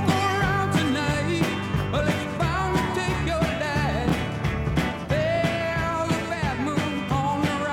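Rock song from the soundtrack with a steady beat, bass and a melody line that is sung or played on a lead instrument.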